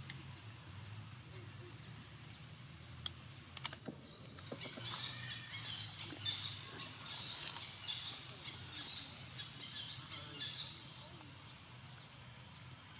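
Outdoor ambience with a run of short, high chirping animal calls in the middle, from about four and a half to ten and a half seconds in, over a steady low hum.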